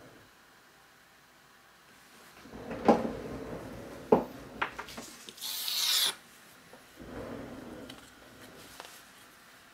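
Handling noise: a sharp knock about three seconds in and another about a second later, with rustling between them. A short hissing scrape follows near the middle, then softer rubbing.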